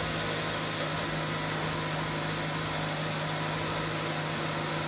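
A steady machine hum: a constant low drone under an even hiss.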